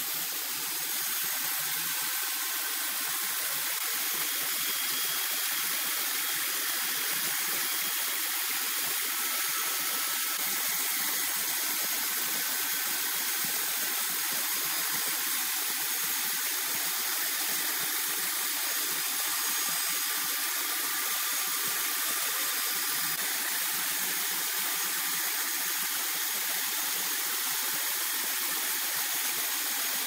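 Bandsaw mill's blade running lengthwise through a log of red incense wood, a steady even sawing noise with faint high tones.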